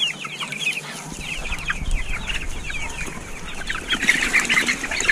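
Month-old chicks peeping in a flock: many short, high, falling cheeps overlapping one another, busiest near the end.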